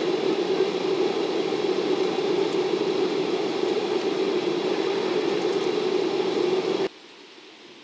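Steady engine and airflow drone heard inside a jet airliner's cabin as it taxis. It cuts off abruptly about seven seconds in, leaving only a faint hiss.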